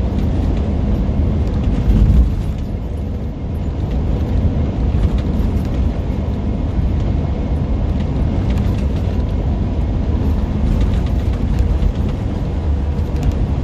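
Steady low engine and road rumble of a semi truck heard inside its cab while driving, with a brief louder swell about two seconds in.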